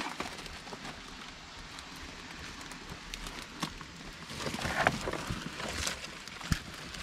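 Footsteps and rustling over dry debris and brambles, with scattered small cracks and clicks, a busier stretch of rustling past the middle, and one sharp knock about six and a half seconds in.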